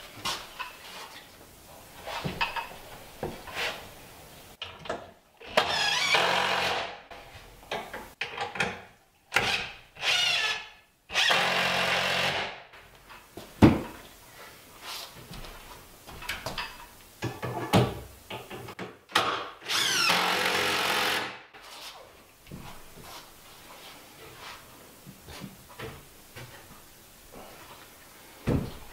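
Cordless drill run in several short bursts of one to two seconds, driving fasteners into a wooden cabinet frame, with knocks of wood and tool handling in between.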